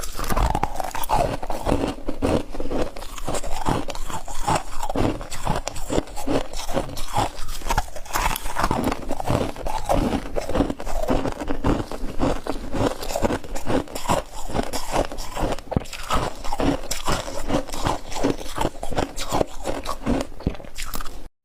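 Close-up crunching and chewing of hard freezer frost chunks: dense, rapid, irregular crunches, bite after bite.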